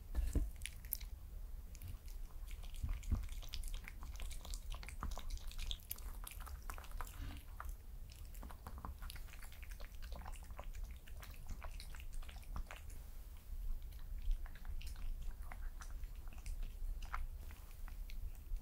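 White Pomeranian chewing and lapping rice cake and dumpling soup from a bowl: a steady run of irregular small wet clicks and smacks.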